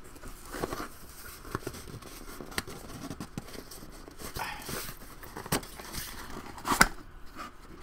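A cardboard box being opened by hand and a boxed figure pulled out: cardboard scraping and rustling with scattered sharp knocks and clicks, the sharpest about seven seconds in.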